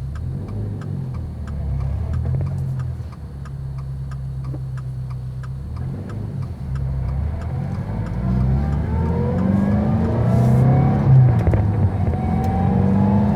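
Turbocharged 2.4-litre flat-four of a 2022 Subaru WRX, with a catted J-pipe and turboback exhaust, running while driving. It cruises at first, then pulls up through the revs from about eight seconds in, drops back briefly about eleven seconds in, and climbs again.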